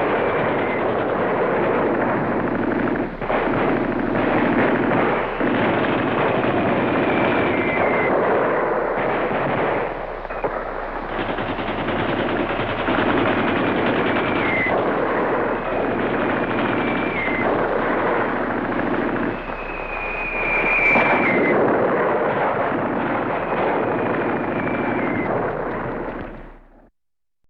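Twentieth-century battle ambience: dense, continuous machine-gun and rifle fire with artillery mixed in. Several short falling whistles recur through it. The track cuts off near the end.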